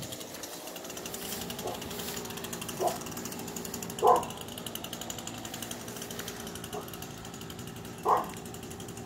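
A dog barking a few times at irregular intervals, the loudest barks about four and eight seconds in, over a steady fast rattling background noise.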